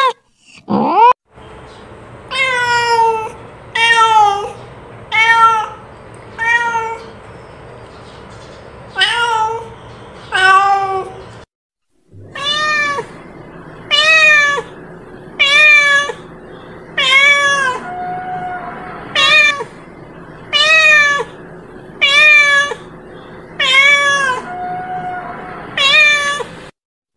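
Domestic cat meowing over and over, short meows each rising then falling in pitch, about one every second and a half, with a brief break near the middle.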